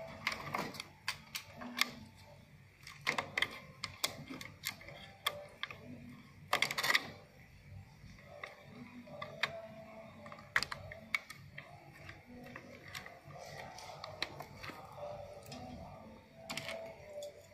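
Irregular clicks and taps of cable connectors and wires being handled and pushed onto a TV's main circuit board in a metal chassis, with a few louder knocks about 3, 7 and 10 seconds in.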